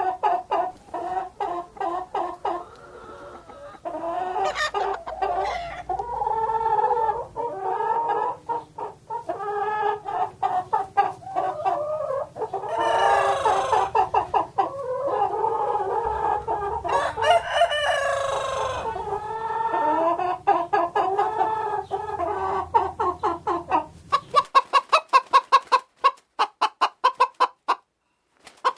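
Hens clucking and cackling almost without pause, with two louder, longer calls around the middle. Near the end comes a fast, even run of short clucks.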